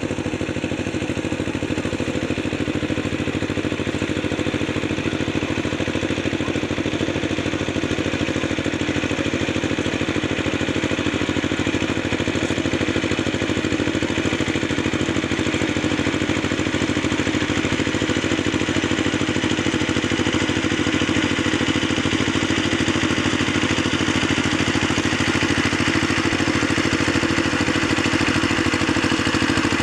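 An engine running steadily, a constant mechanical drone that grows slightly louder toward the end.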